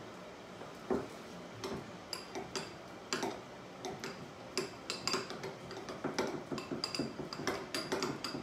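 A spoon stirring a slice of cheese into grits in a small ceramic bowl, clinking and scraping against the bowl in quick, irregular taps, several a second. A single knock comes about a second in, before the stirring starts.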